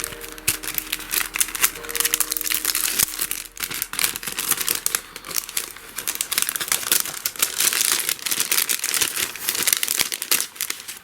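Packaging crinkling and rustling as it is handled and opened, a dense irregular crackle throughout.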